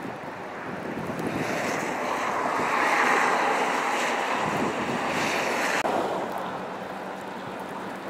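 Blizzard wind gusting and rushing through bare tree branches, with wind buffeting the microphone. It swells to a peak about three seconds in, then drops off suddenly a little before six seconds in to a lower steady rush.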